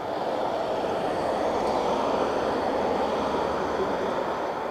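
Road traffic on a busy main road: cars driving past with a steady rush of tyres and engines, swelling to its loudest about two seconds in.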